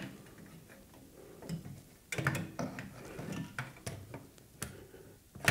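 Irregular light clicks, taps and scrapes of a GeForce RTX 3060 Ti graphics card knocking against the case and PCIe slot as it is lined up. The card is catching and not seating, blocked by a fan cable.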